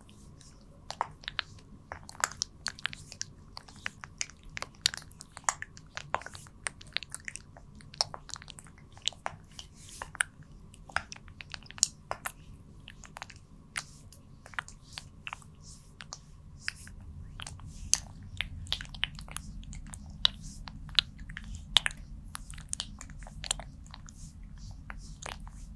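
Oiled hands massaging a mannequin's face, giving quick, irregular wet clicks, several a second, as palms and fingers press and lift off the slick surface.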